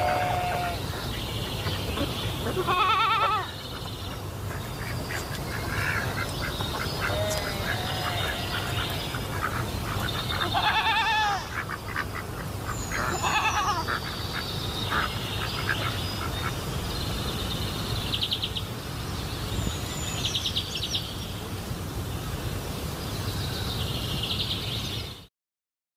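A mix of animal and bird calls: several wavering pitched calls a few seconds apart, high chirps and short buzzy trills, over a steady low hum. The sound cuts off abruptly near the end.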